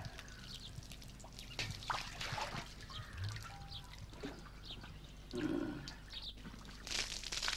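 Water splashing and pouring from a clay water pot, a loud even rush that starts near the end. Before it, scattered light knocks and faint short chirps.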